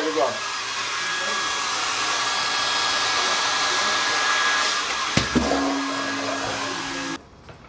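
A steady, loud rush of hissing air with a faint whistle in it. A sharp click comes about five seconds in, followed by a low hum, and the whole sound cuts off abruptly near the end.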